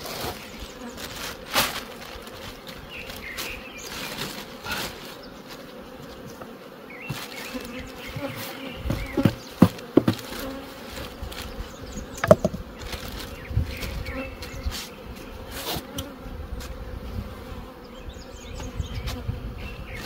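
Honeybees buzzing at an open hive, a steady hum, with a few sharp knocks and rustles from handling the hive as the frames are covered.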